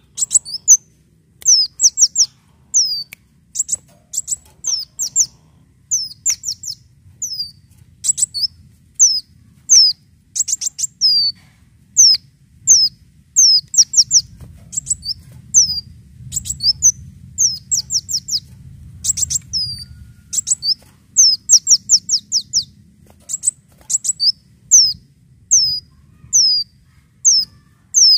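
Sunbird (kolibri daun) calling: sharp, high notes, each falling in pitch, given singly and in quick runs of three to five, repeated steadily about once or twice a second.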